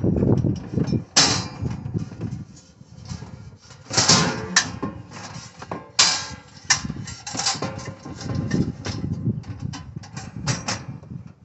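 Folding metal camp stove being handled: its lid, side panels and grate clatter and knock in quick, irregular strikes, with a few sharper bangs about a second in, four seconds in and six seconds in.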